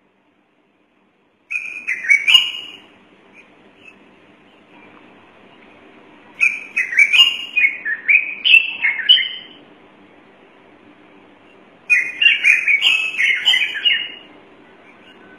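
Stone-curlew (karawan) calling: three bouts of loud, rapid piping notes, each lasting two to three seconds. The first comes about a second and a half in, the second around six seconds in, and the third near the end.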